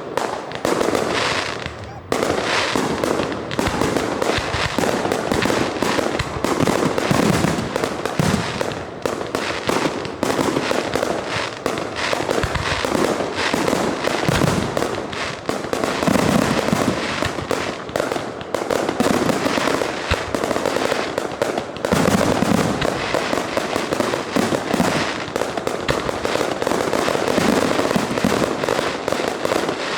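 Fireworks going off in a dense, continuous barrage: many bangs and crackles overlapping, with no pause.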